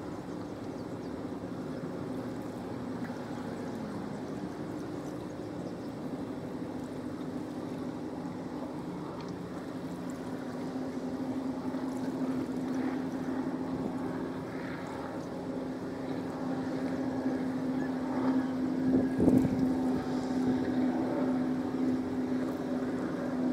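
Steady drone of a boat engine, growing louder over the last several seconds.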